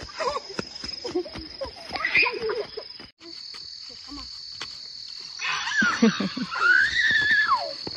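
Insects trilling in a steady, high-pitched drone, like crickets. Children's voices chatter and call over it, with one long gliding shout near the end. The sound drops out for a moment about three seconds in.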